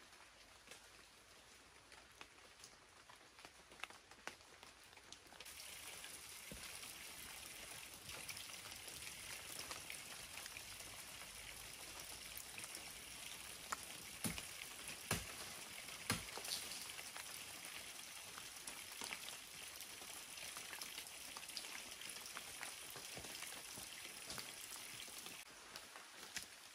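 Steady rain falling on forest leaves, a hiss that starts suddenly a few seconds in and stops just before the end, with a few sharp knocks in the middle.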